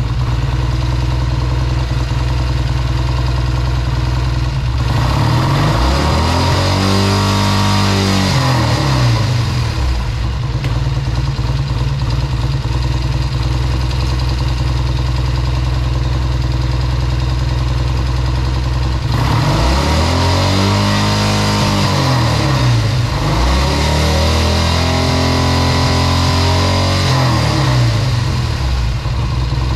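1970 Triumph T120R Bonneville's 650 cc parallel-twin engine running at idle with the throttle blipped. The revs rise and fall once around 6 to 9 seconds in, then twice more in the second half.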